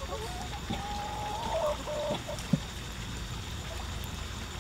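Domestic chickens clucking, with drawn-out calls for the first couple of seconds, then quieter. A single short knock about halfway through stands out as the loudest sound.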